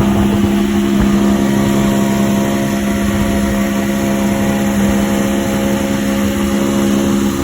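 Engine running at a steady speed, a constant hum that holds one pitch throughout.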